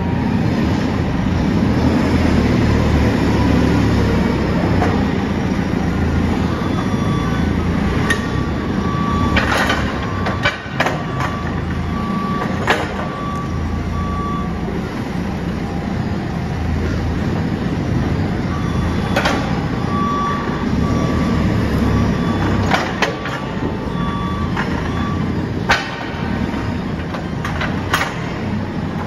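JCB telehandler's diesel engine running steadily, with several sharp metal clanks from the fork carriage. A repeated beeping alarm sounds twice, for several seconds each time.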